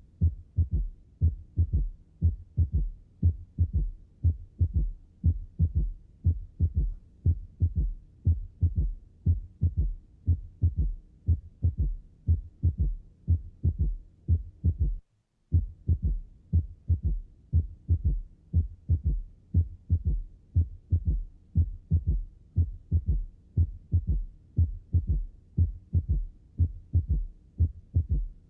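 Recorded human heart sounds: a steady, regular rhythm of low thuds, about two a second. The recording cuts out for about half a second midway, then resumes at the same rhythm.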